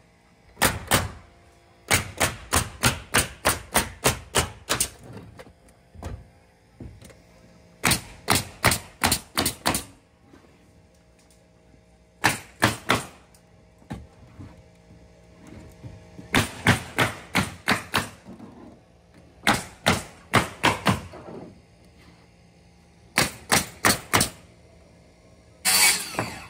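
Pneumatic framing nailer driving nails into OSB roof sheathing, in quick runs of about three to four shots a second with pauses between runs. Near the end a circular saw cuts briefly into a sheet of OSB.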